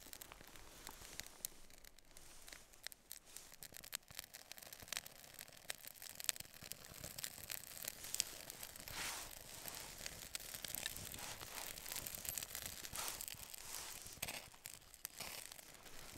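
A small fire of wet dead spruce twigs being lit: scattered small crackles and clicks, with a few short scraping hisses about nine, thirteen and fifteen seconds in.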